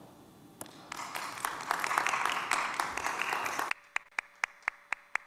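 Audience applauding, starting about a second in. The general clapping drops away abruptly after about three and a half seconds, leaving a run of evenly spaced claps, about four a second.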